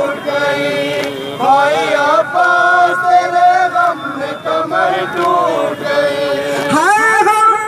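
Men chanting a noha, a Shia lament in Urdu-Hindi, with a lead voice on a microphone singing long, drawn-out held notes and others singing along.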